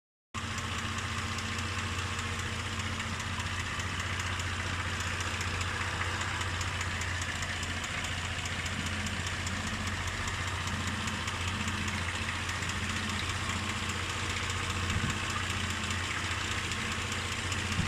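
Mitsubishi Pajero IV engine idling fully warmed up, with a knock at idle.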